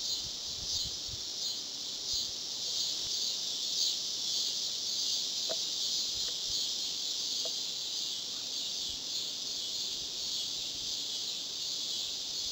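Steady high-pitched chorus of insects calling at dusk, an even shrill hiss, with a couple of faint brief chirps midway.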